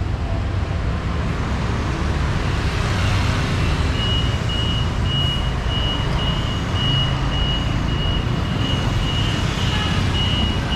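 Steady rumbling vehicle noise. A few seconds in, an electronic warning beeper starts, sounding one high tone about twice a second.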